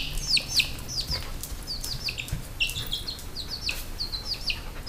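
A baby chick peeping: a quick, steady run of short, high peeps, each sliding downward, about three or four a second.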